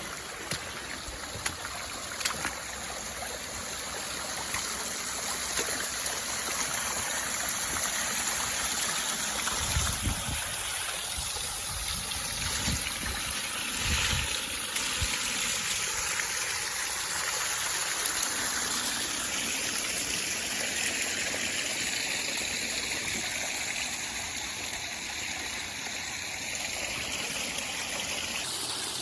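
Water running over rocks in a constructed recirculating waterfall and stream: a steady, even rush. A couple of brief low rumbles come near the middle.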